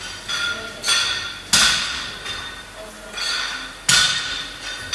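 Metal gym weights clanking down against the floor in a steady rhythm of repetitions, sharp ringing strikes that come in pairs about every two and a half seconds.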